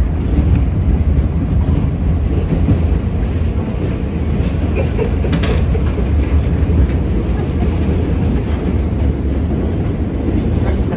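Inside a moving R68 New York City subway car: the steady low rumble of the car and its wheels running on the rails, with a few faint clicks from the track.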